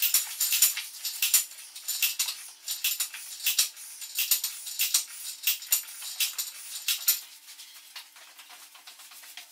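Rapid, irregular light metallic clicking and clinking, which thins out to scattered ticks about seven seconds in, over a faint steady hum.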